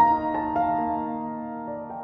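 Background piano music: single notes struck one after another and left ringing, the loudest struck right at the start.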